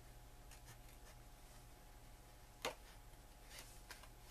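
Small craft scissors fussy cutting around a printed paper image: faint, scattered snips over a steady low hum, with one sharper click a little past halfway.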